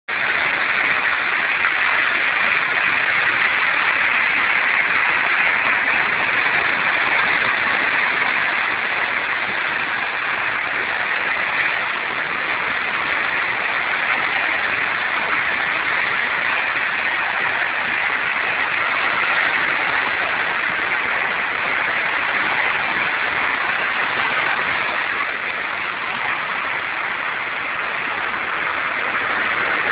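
Ocean surf breaking and washing over coastal rocks: a steady rushing hiss with no separate wave crashes standing out.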